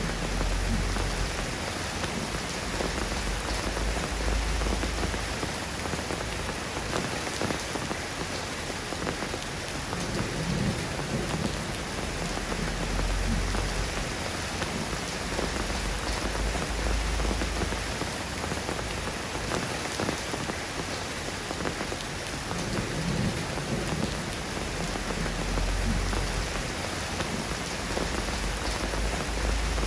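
Steady rain falling, an even hiss of many drops, with a low rumble that swells and fades three times.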